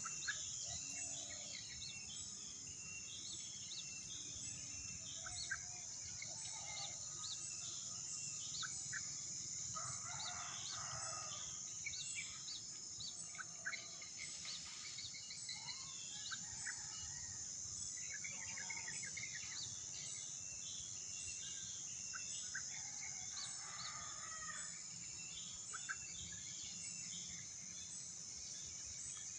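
Outdoor rural ambience: a steady high-pitched insect chorus, with small birds chirping on and off. A rooster crows twice in the distance, about ten seconds in and again near 24 seconds.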